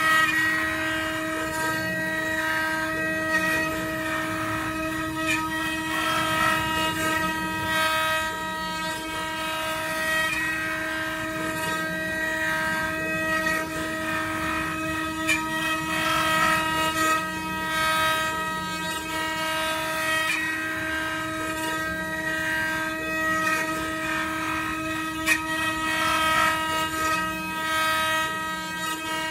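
Multi-spindle 4-axis CNC wood router carving on its rotary axes: a steady high whine from the spindles, with the uneven rasp of the bits cutting wood and occasional sharp ticks over it.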